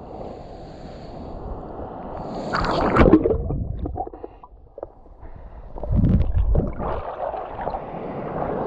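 Lake water lapping with wind on the microphone, then a splash as the swimmer ducks under about three seconds in. Muffled underwater gurgling and bubbling follows, then splashing and water running off as he comes back up.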